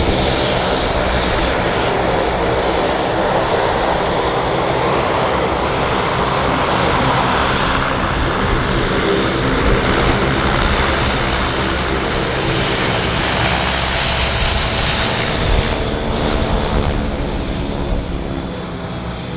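Large aircraft's engines running with a steady, loud roar, easing off slightly near the end.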